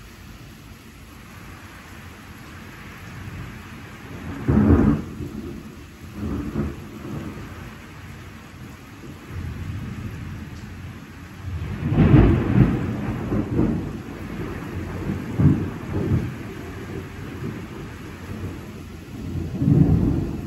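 Thunderstorm: steady rain with thunder rumbling in repeated peals over it. The loudest peal comes about twelve seconds in and rolls on for a couple of seconds, and another strong one comes near the end.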